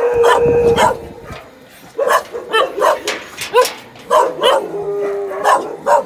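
A pack of dogs barking and yipping: many short, sharp barks from several dogs in quick, uneven succession, with a couple of longer drawn-out notes.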